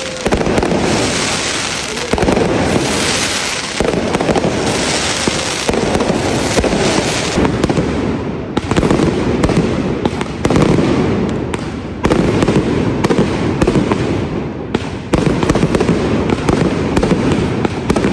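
Correfoc fireworks: hand-held spark fountains hissing in stretches of a couple of seconds, with dense crackling and sharp firecracker bangs throughout.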